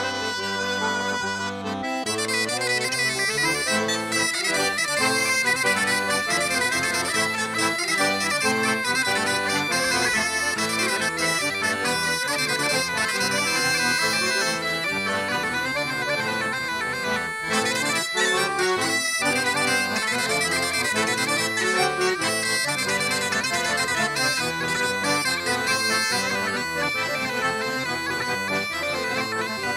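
Breton traditional dance music played live on accordion and bagpipes, a continuous tune for the dancers. About two seconds in, the held low notes give way to a moving dance rhythm.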